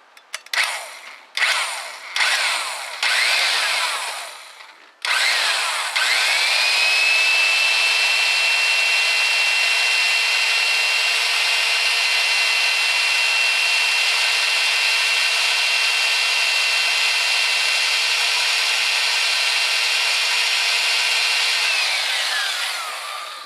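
Electric drill starting to bore into the cast-iron exhaust manifold for a pyrometer probe. It first runs in a few short trigger pulses that speed up and slow down, then runs one long steady whine at full speed for about sixteen seconds before winding down near the end.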